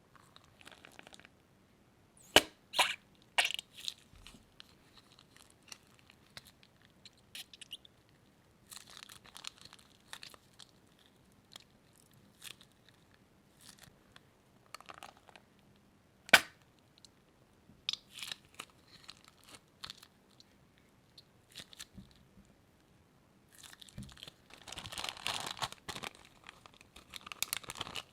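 Crunchy slime being handled: scattered sharp crunches and pops, then a stretch of continuous dense crinkling near the end.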